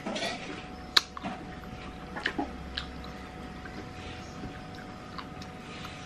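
Chewing and mouth smacks while eating steamed fish with the fingers, with a few scattered small clicks, the sharpest about a second in.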